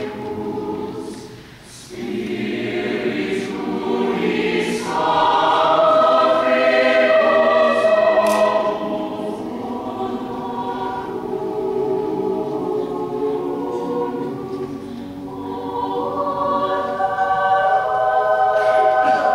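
Large mixed choir of men's and women's voices singing in sustained chords, dipping briefly between phrases about two seconds in, then swelling louder through the middle and again near the end.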